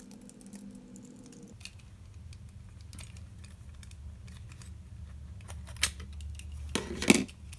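Plastic clicks and rubbing as the smoke alarm's main unit is twisted in its plastic base, with a few sharp clicks and the loudest cluster near the end, over a low steady hum.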